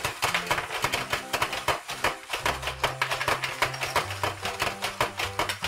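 Wound-up plastic spinner of a toy game turning, its mechanism making a rapid, steady clicking, under quiet background music.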